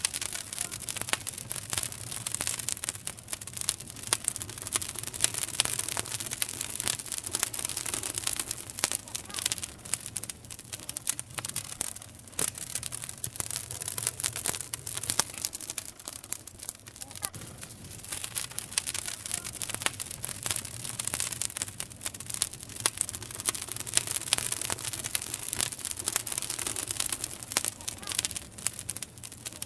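Wood campfire burning, crackling steadily with frequent sharp pops and snaps over a soft hiss.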